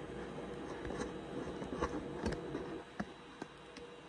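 A hand-held clear plastic culture tub being handled and tilted, giving a handful of light scattered clicks and taps over a steady low hum.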